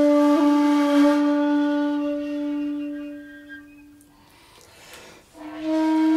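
Intro music: a woodwind instrument holds one long low note that fades away over about four seconds. After a short gap, a new, slightly higher note comes in near the end.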